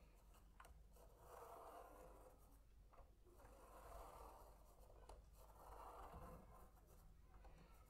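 Fineliner pen tracing on paper through a clear plastic spirograph gear rolling inside a larger toothed ring. Faint scratchy swells about every two seconds, one for each pass of the gear, with a few small clicks between them.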